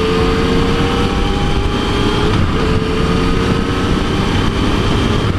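Yamaha FJ-09's three-cylinder engine running at a steady cruising throttle, heard from inside the rider's helmet over wind and road rush. Its note climbs slowly, with a short break about two and a half seconds in.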